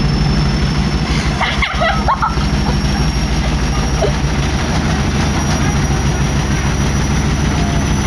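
Front-loading washing machine on a fast spin, its drum giving a loud, steady, rapidly pulsing rumble as the cabinet shakes hard enough to walk across the floor.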